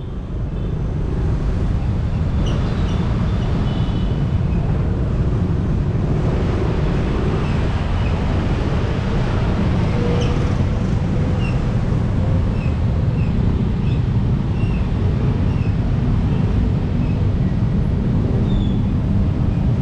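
Ride noise from a Honda Forza 250 scooter moving slowly through city traffic: a steady low rumble of its 250 cc single-cylinder engine mixed with road and wind noise, fading in over the first second. Short high chirps come and go throughout.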